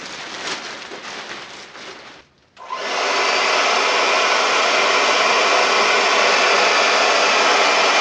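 Plastic bin liner rustling and crinkling, then after a brief pause a handheld hair dryer starts about two and a half seconds in and runs steadily at full blow, blowing into the mouth of the bin liner to inflate it.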